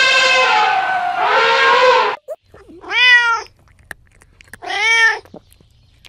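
An elephant's trumpet call, held and then falling in pitch, stops about two seconds in. Then a domestic cat meows twice, two short calls that rise and fall, about two seconds apart.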